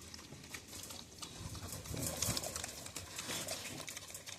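Farm animal eating, with faint irregular smacking and chewing sounds.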